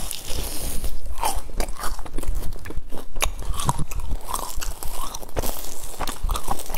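Close-miked biting and chewing of a sesame-crusted fried glutinous-rice bun: crisp crunches of the fried crust, coming quickly and unevenly.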